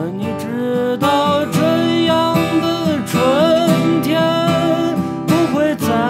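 A man sings a slow folk melody with held, sliding notes over a strummed Gibson J-45 acoustic guitar.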